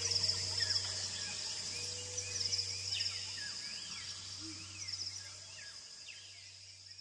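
Night-time ambience of a steady, pulsing cricket-like insect chorus with repeated rising-and-falling bird calls over a low steady hum, fading out gradually.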